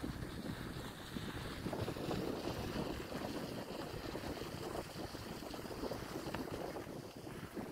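Wind buffeting the microphone: a steady, rough noise that carries on throughout, heaviest in the low range.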